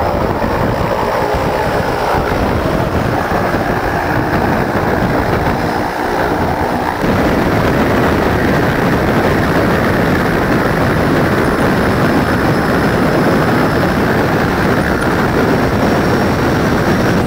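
Single-engine propeller plane's engine running, heard loud from the cabin by the open door. The noise steps up, louder and fuller, about seven seconds in.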